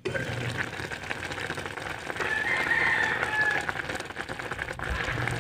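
Pot of vinegar-based fish stew boiling uncovered on a gas stove, a steady bubbling hiss. A rooster crows in the background for about a second midway.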